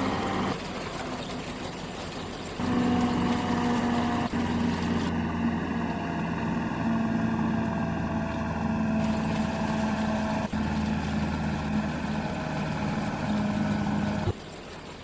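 Combine harvester's engine running steadily, heard in a string of short clips with abrupt cuts between them; it drops to a quieter background near the end.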